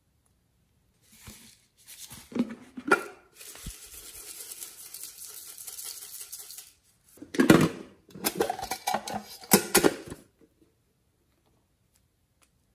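Small plastic containers clicking and knocking as they are handled. In the middle comes a few seconds of steady, light, hissing patter as sequin glitter is poured from a shaker onto the slime. The loudest knocks come near the end, when the container is set down.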